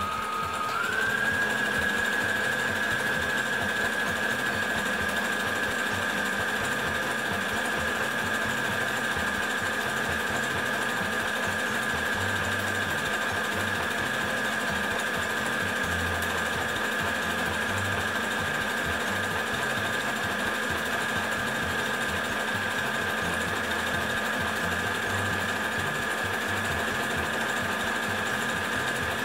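Household sewing machine running continuously, sewing an overlock-style edge stitch on stretch knit fabric. Its motor whine rises in pitch about a second in as it comes up to speed, then holds steady.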